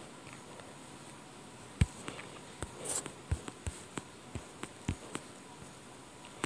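Light, irregular taps on a tablet's touchscreen during digital drawing: a dozen or so short clicks beginning about two seconds in, the first the loudest, over a faint steady hiss.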